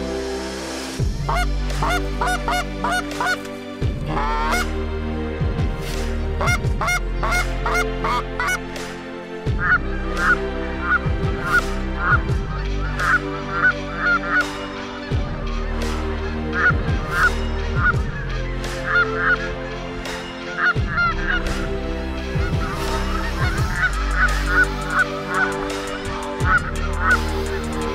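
A flock of Canada geese honking, with many calls overlapping throughout. Steady background music runs underneath.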